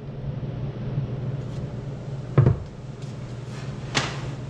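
Two handling knocks over a steady low hum: a dull knock about halfway through and a sharper click near the end.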